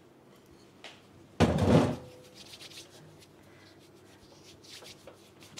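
A brief, loud scraping rub of about half a second comes about a second and a half in, followed by faint knocks and handling noises in a kitchen.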